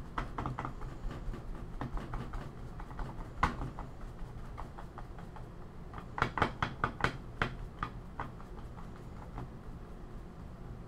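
Light, irregular taps of a soft wad dabbing wet acrylic wash off the painted surface of a dice-rolling tray, with a quick run of louder taps a little past halfway. A faint steady hum lies underneath.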